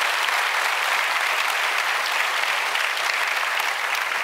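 Crab omelet deep-frying in a wok of hot oil: a steady sizzling hiss with faint crackles.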